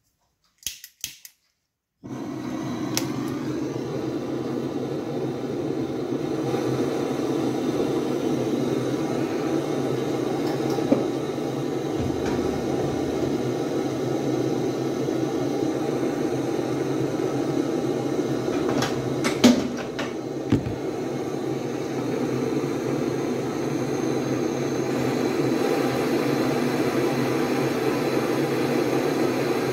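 Hose-fed gas torch lit about two seconds in after a few clicks, then its flame burning with a steady noise as it heats metal. A couple of brief knocks come near the middle.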